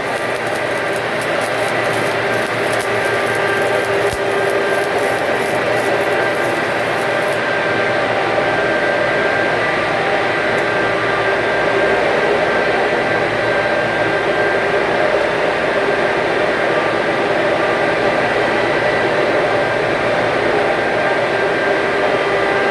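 Stick (SMAW) welding arc crackling for about the first seven seconds, then going quiet, over a loud, steady mechanical drone with a few steady tones that runs throughout.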